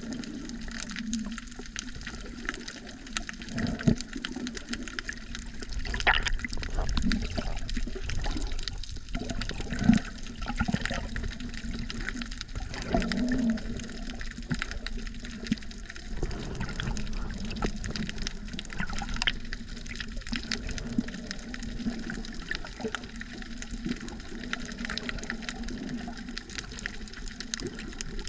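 Underwater water noise picked up by a camera submerged in the sea: a steady muffled rush with irregular louder surges.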